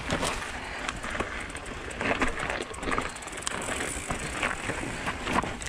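Mountain bike rolling over loose rock and dirt singletrack: tyres crunching and the bike rattling with a steady run of irregular clicks over a noise of wind and trail.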